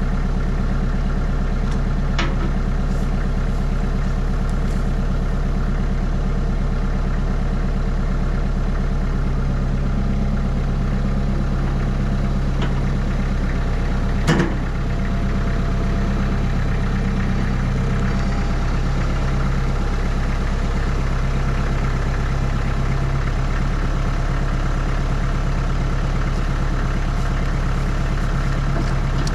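Tractor diesel engine running steadily, its hum heavier through the middle of the stretch, with one sharp crack about fourteen seconds in.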